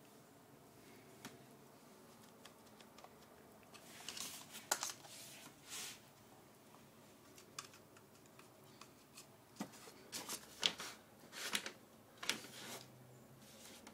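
Irregular light clicks, taps and short scrapes of a paintbrush dabbing and scrubbing in a plastic watercolour paint tray, with louder clusters in the second half.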